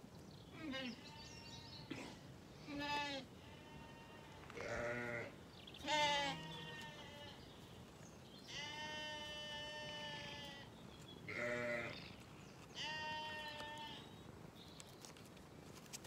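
Sheep bleating, about nine separate calls, mostly short, with one held for about two seconds midway.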